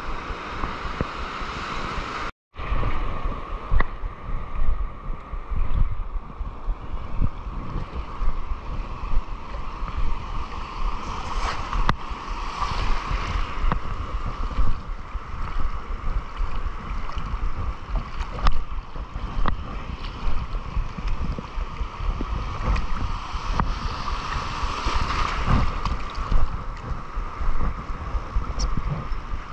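Surf washing and churning around a wading angler, with heavy wind buffeting on a body-worn action camera's microphone. The sound drops out for a moment about two and a half seconds in.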